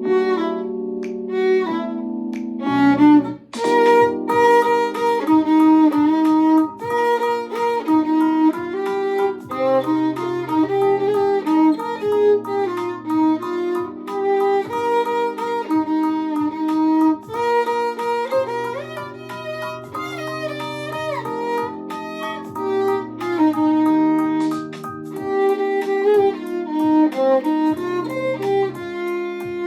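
Violin playing the melody of a pop ballad over a backing track with bass and chords. The accompaniment thins briefly about three and a half seconds in, then comes back fuller with a steady beat.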